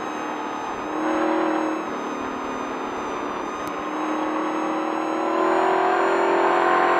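Desert race truck's engine running hard over dirt, over a steady wash of road and wind noise. The engine swells briefly about a second in, then climbs steadily in pitch and loudness over the last few seconds as the truck accelerates.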